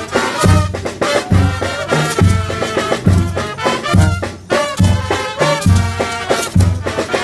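Brass band playing dance music, trumpets and trombones over a steady bass beat a little faster than once a second.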